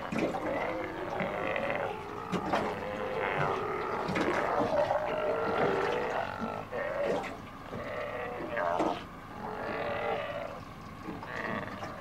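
Steller sea lions calling from the water: many overlapping calls that follow one another without a break.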